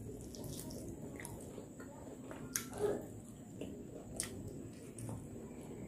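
Close-up chewing of fried crablets and rice, with a few sharp crunches around the middle, over a steady background of falling rain.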